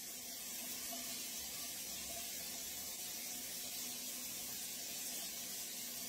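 Steady low hiss of indoor room tone with a faint hum.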